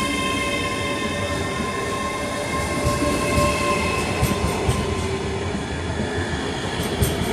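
Class 385 electric train running, a steady rumble with a whine of several held tones from the traction equipment that fades about halfway through, and a few sharp clicks from the wheels and rails near the end.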